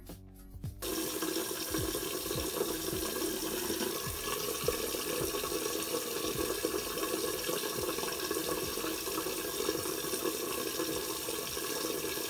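Tap water running steadily into a bathroom sink, starting about a second in.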